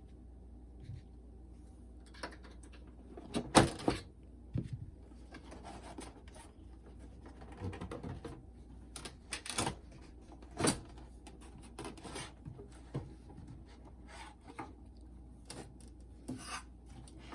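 Hands working on a boombox's casing and parts during disassembly: scattered clicks, knocks and rubbing, with the sharpest knocks about three and a half seconds in and around ten and a half seconds in.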